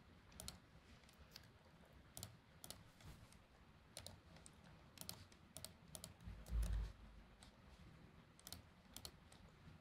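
Faint computer keyboard typing and mouse clicks: sparse, irregular keystrokes. A dull low thump comes about six and a half seconds in.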